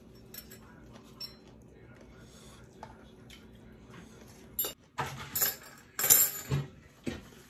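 Tableware clinking and clattering at a dinner table: a few faint clicks at first, then a quick run of louder clatters in the last three seconds.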